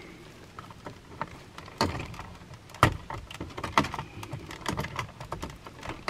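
Scattered small clicks and taps of a screwdriver on the plastic screw terminals of an HVAC zone control board as thermostat wires are fastened, the sharpest click about three seconds in.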